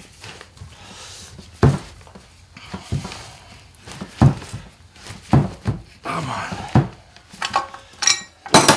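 Repeated sharp metal knocks, irregular and roughly one a second, coming closer together near the end, as a blind hole bearing puller works a tight bearing out of an NP231 transfer case half.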